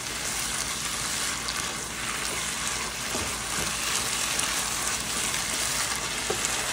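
Chopped beef, onion and tomato frying in a nonstick skillet, sizzling steadily while being stirred with a spoon.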